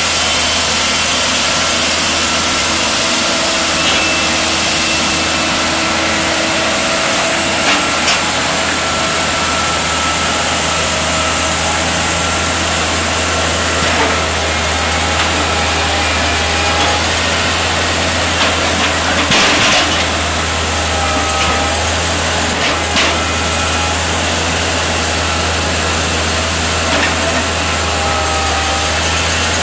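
Diesel engine of a Manitowoc 14000 crawler crane running steadily with a deep hum and faint higher whines that waver in pitch, while its rock grapple is worked over the boulder pile. A few short sharp knocks sound over it, the loudest about two-thirds of the way through.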